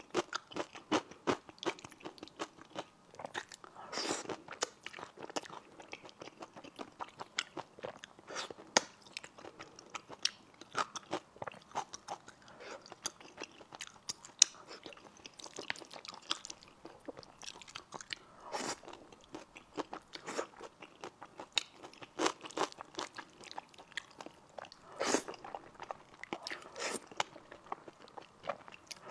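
Close-miked eating of spicy stir-fried rice noodles: chewing and biting, heard as many short clicks with a few louder mouthfuls, and noodles drawn into the mouth with chopsticks near the end.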